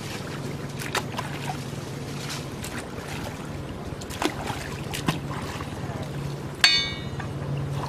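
Splashes and scrapes of a hoe working the mud in shallow ditch water, over a steady low hum. A short, sharp ringing knock about six and a half seconds in is the loudest sound.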